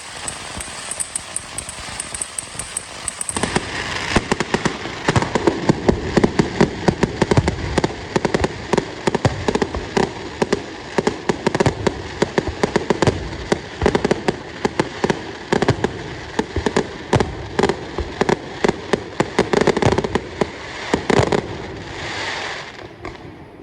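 Fireworks going off: fast fine crackling at first, then from about three seconds in a dense, continuous barrage of bangs and crackles that dies away near the end.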